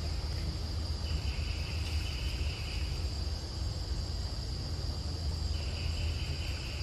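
Forest insects droning: a steady high-pitched hum, joined by a second, lower buzzing chorus about a second in that stops about two seconds later and starts again near the end, over a low background rumble.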